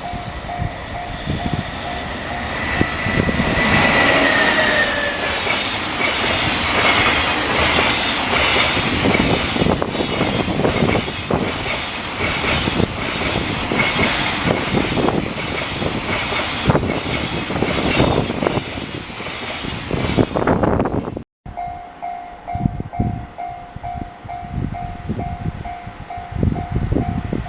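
Level-crossing alarm bell ringing in a steady repeated pattern while a train passes over the crossing, its wheels clicking rhythmically over the rail joints for about eighteen seconds, with a short tone falling in pitch about four seconds in. The train noise cuts off abruptly a little past twenty seconds, and the crossing bell goes on ringing alone.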